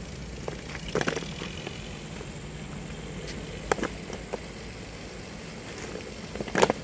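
Drill boots stamping together on a hard court in a few sharp strokes, about a second in, near the middle and near the end, over a steady low hum.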